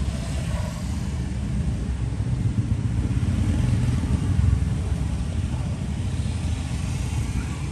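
Steady low rumble of background road traffic, with no distinct events.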